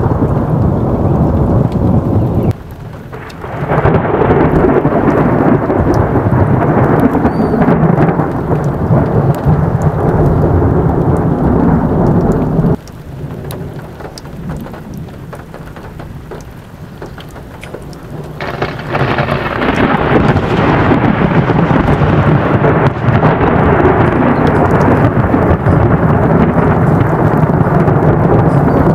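Thunderstorm: long rolls of thunder over rain. The sound drops away suddenly twice, briefly about two and a half seconds in and for several seconds from about thirteen seconds in, before building back up.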